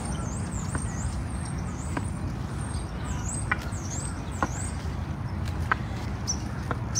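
Outdoor ambience: a steady low rumble of distant traffic, with a few scattered light clicks and a run of high, dipping squeaky notes, near the start and again around three to four and a half seconds in.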